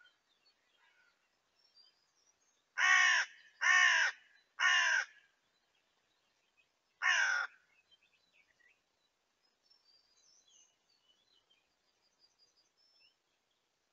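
Common ravens calling while mobbing a Eurasian eagle owl: three calls about a second apart, then a fourth two seconds later, each about half a second long.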